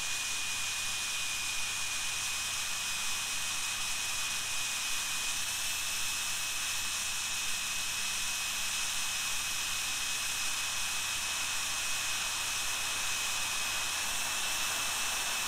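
Jet Central Rabbit SP model turbine jet engine running at about 112,000 to 114,000 RPM: a steady rushing hiss with a high whine that steps up slightly in pitch twice as the throttle is nudged up. At this speed the turbine holds steady without surging.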